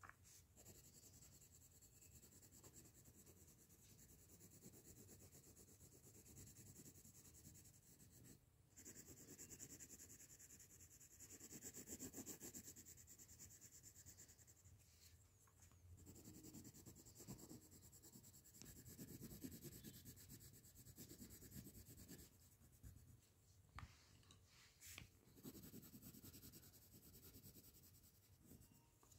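Coloured pencil shading on paper: a faint scratchy rubbing that comes in stretches of strokes, swelling and fading, with a couple of light ticks near the end.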